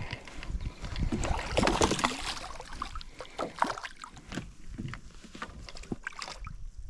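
Irregular knocks, clicks and water noise around a small fishing boat, busiest in the first two and a half seconds, then sparser.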